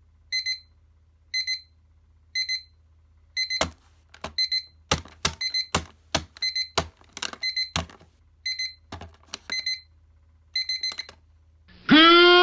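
Digital alarm clock going off, sounding short clusters of high-pitched beeps about once a second, with sharp knocks from about four seconds in as a hand reaches over and fumbles at the clock. Loud music cuts in just before the end.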